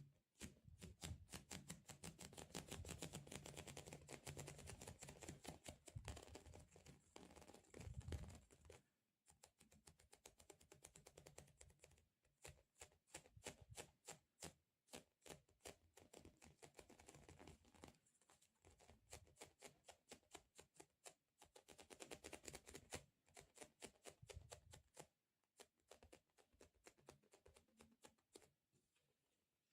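Close-miked ASMR object sounds: quick, faint sticky crackles and clicks, dense for the first nine seconds, sparser after a short gap, busier again a little past twenty seconds, then thinning out near the end.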